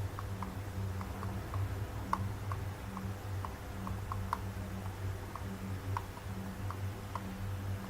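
Light, irregular ticks, a few each second, over a steady low hum.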